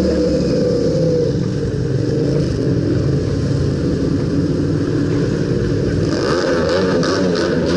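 Motorcycle engines running in street traffic, one engine's pitch falling during the first second or so as it eases off, then a steady engine drone; a run of clicks near the end.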